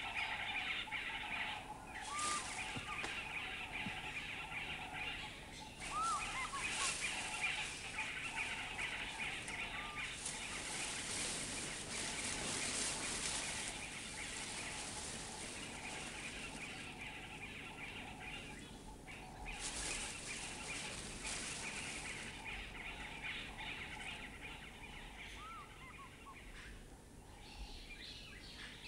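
Woodland birds chirping and calling in a busy chorus, with a high hiss that swells and fades several times.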